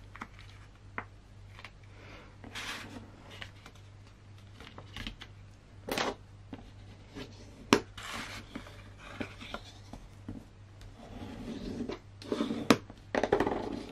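Heavy white paper being folded and creased, a bone folder rubbed along the fold in irregular sliding strokes, with paper rustling and a few sharp clicks.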